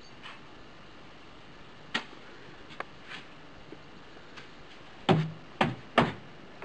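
A few scattered knocks, then three loud thuds in quick succession, about half a second apart, near the end.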